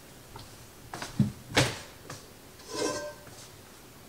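Cookware being handled while a cast iron skillet is fetched: a few knocks about a second in, then a short clatter with metallic ringing near three seconds.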